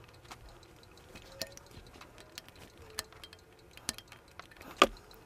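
Scattered small clicks and taps of a screwdriver blade working a tiny screw in the steel receiver of a Rossi R92 lever-action rifle, with light handling of the gun; the loudest click comes near the end.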